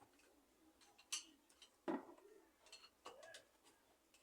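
Near silence broken by a few faint clicks and light knocks of small metal parts being handled, the loudest a little under two seconds in.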